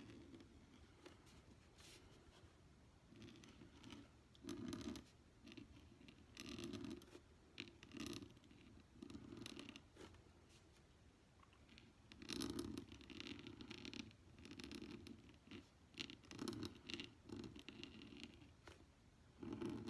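Brause 511 steel pointed nib scratching across envelope paper in short, irregular strokes with pauses between.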